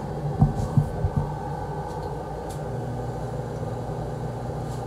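Coogar filling machine running with its wax and scent pumps on: a steady low hum. Starting about half a second in, a few sharp knocks come in quick succession and are louder than the hum.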